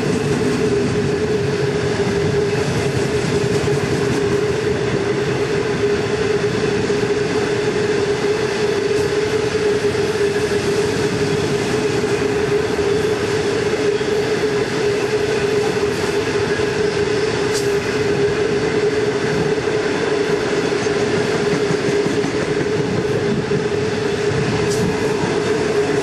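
Loaded iron ore wagons of a very long freight train rolling steadily past: a continuous rumble of steel wheels on rail with a steady hum running through it.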